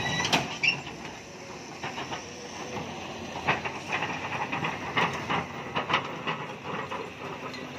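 Caterpillar 320D excavator travelling on its steel crawler tracks: irregular clanks and knocks from the track links over the steady running of its diesel engine.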